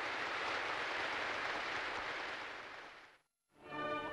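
Applause from a crowd, steady and even, fading out about three seconds in. After a brief silence, operatic singing with accompaniment starts near the end.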